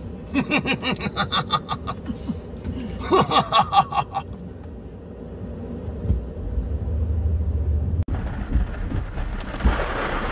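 People laughing in rapid pulses inside a car cabin, over the low rumble of the moving car. Near the end, rain on the car's windshield makes a steady hiss.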